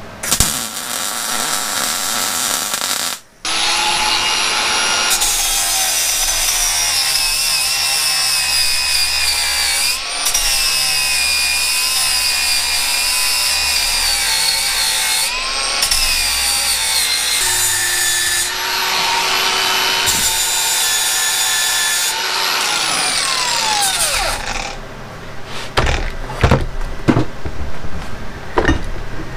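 A few seconds of MIG welding crackle, then an angle grinder grinding down the weld on a steel shaft, its whine wavering as it bites. Near the end the grinder spins down, followed by a few metal knocks as the work is handled.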